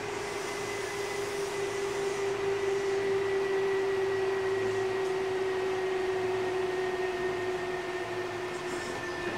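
Kintetsu 8000 series electric train running, heard inside the car: a steady traction-motor whine over the rumble of the running gear, its pitch sinking slowly as the train eases off speed.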